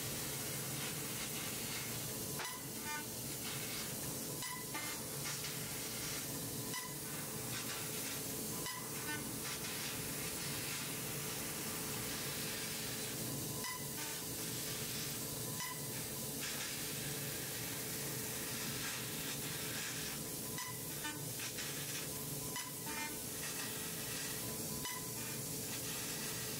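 A 12 kW fiber laser cutting head slicing 8 mm carbon steel plate: a steady hiss of the assist-gas jet and sizzling molten metal, with a low steady tone underneath. Short breaks with faint tonal blips come every two seconds or so.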